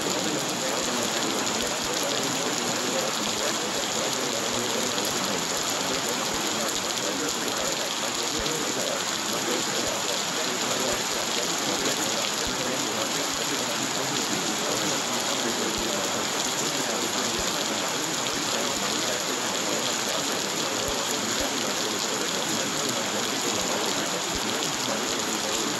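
Rain falling, a steady, even wash of noise.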